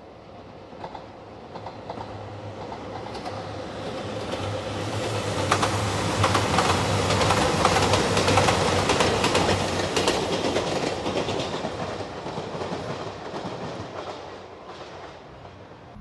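JR Shikoku Nanpu limited express diesel train passing, growing louder as it approaches and fading as it goes away. Its wheels clatter over the rail joints with a low steady hum underneath, both loudest about halfway through.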